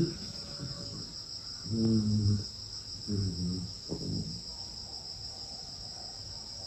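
A sleeping dog snoring: two drawn-out, throaty snores about two and three seconds in, then a short one just after. A steady high-pitched whine runs underneath.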